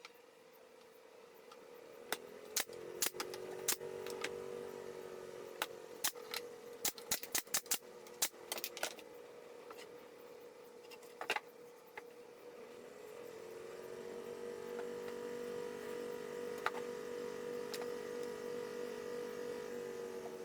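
A small electric motor humming steadily; the hum swells up twice. Between about two and twelve seconds in there is a run of sharp clicks and taps.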